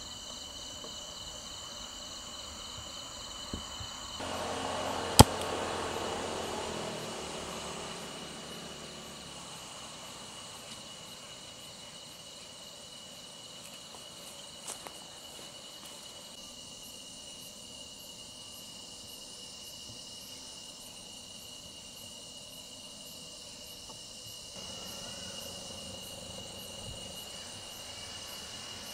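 Crickets and other insects chirring steadily in a high, even drone. A single sharp click comes about five seconds in, with a couple of fainter knocks later on.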